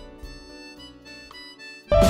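Quiet instrumental background music with held notes and a few plucked notes; much louder guitar music cuts in abruptly at the very end.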